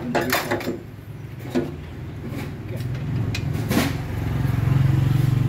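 A motor vehicle's engine runs with a steady low hum that grows louder near the end. A few short knocks are heard over it.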